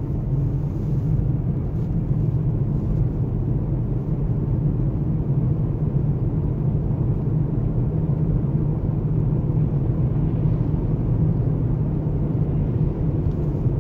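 Steady tyre and road rumble inside the cabin of a Lexus UX running on studded winter tyres, which the driver finds noisy, while the car picks up speed gently in town.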